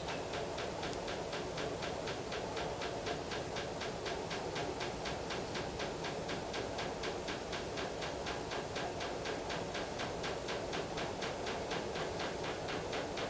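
A steady mechanical ticking, about five even ticks a second, over a constant low hum, like a small motor-driven machine running.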